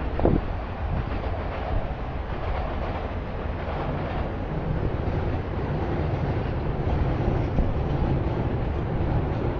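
Steady low rumble of city traffic, with a brief sharp sound near the start.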